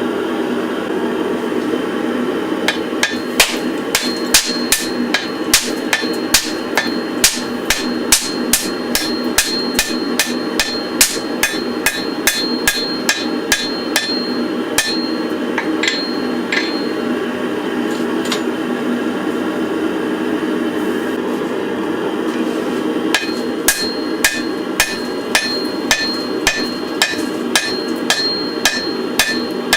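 Hammer blows on a white-hot, borax-fluxed billet of wrought iron and spring steel, setting a forge weld on the first pass. The blows fall about twice a second, each with a ringing note, pause for several seconds in the middle, then resume, over a steady low roar.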